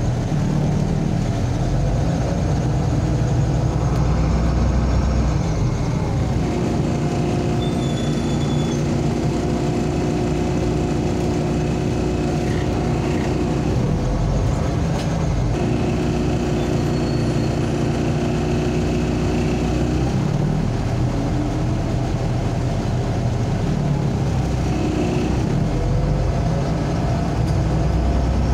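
Interior of a MAZ-203 city bus on the move: steady engine drone and road noise in the passenger cabin, the engine's hum dropping away and picking up again a couple of times as the bus changes speed.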